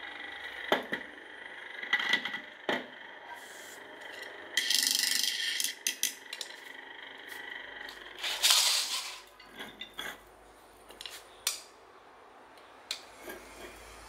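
Handling noise from a rusty electric motor with a steel shaft and its cable being picked up, turned and set down on a concrete floor: scattered metallic clinks and knocks, with two louder scraping bursts about five and eight and a half seconds in.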